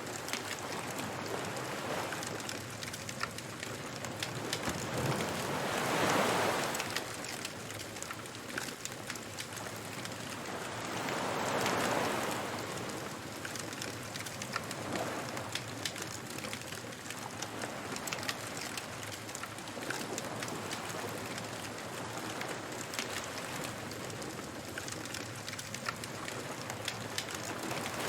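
Beach bonfire ambience: the fire crackling steadily with fine pops, while waves wash onto the shore, swelling loudest about six and twelve seconds in.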